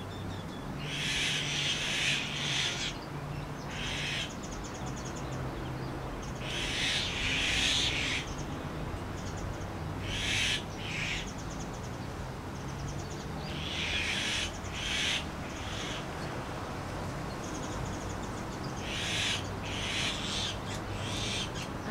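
Birds calling: clusters of short, high calls that come back every four to five seconds.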